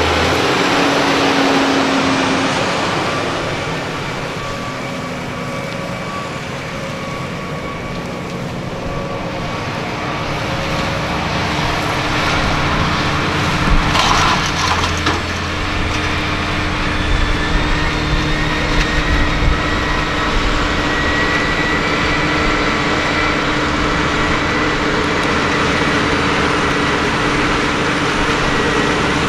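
John Deere 7R 330 tractor's diesel engine running steadily while pulling a Köckerling Quadro cultivator. It grows quieter a few seconds in and louder again from about twelve seconds, with a brief rattle about fourteen seconds in.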